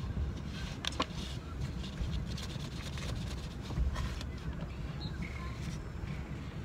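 Close-up mouth and eating noises of someone eating cornstarch: scattered small clicks and crunches over a steady low rumble.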